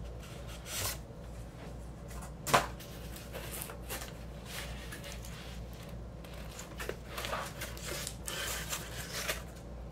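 Shrink-wrapped vinyl LP being handled in its cardboard mailer: scattered scrapes and rustles of cardboard and plastic, with one sharp knock about two and a half seconds in and busier rustling near the end as the record comes out of the mailer.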